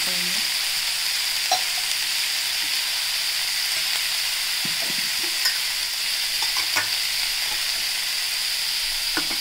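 Sliced onions, tomatoes and green chillies sizzling steadily in hot oil in a kadhai while a metal spoon stirs them. The spoon clinks against the pan a few times.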